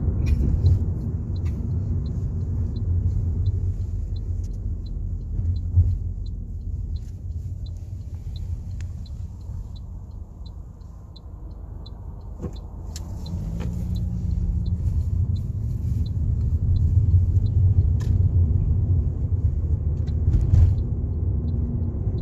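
Engine and road rumble inside a moving car's cabin. It eases to its quietest as the car slows at a traffic-light intersection and builds again as the car pulls away. Light ticking, about one and a half a second, runs through the middle, typical of a turn-signal indicator.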